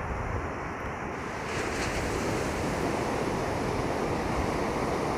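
Ocean surf washing onto the beach, with wind rumbling on the microphone; the surf swells louder about a second and a half in as a wave breaks.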